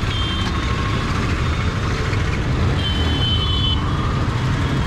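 Motorcycle riding in city traffic: steady engine and road rumble. A high-pitched beep sounds briefly near the start and again for about a second around the middle.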